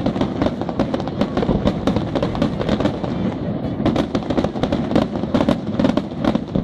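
Aerial firework shells bursting in a dense barrage: many sharp bangs and crackles a second, overlapping on a continuous noisy background.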